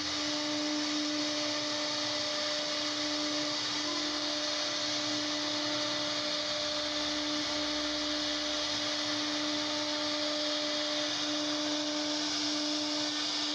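CNC router spindle running at constant speed with a steady high hum, its bit cutting a decorative engraving into a wooden door panel with a continuous hiss.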